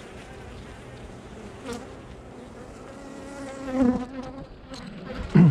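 Honeybees buzzing around an opened hive, with one bee buzzing loudly close by a little before four seconds in. A short low thump, the loudest sound, comes near the end.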